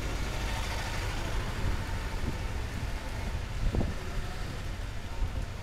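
Rainy street ambience: a steady wash of rain mixed with the low rumble of road traffic, with one short thump a little past halfway.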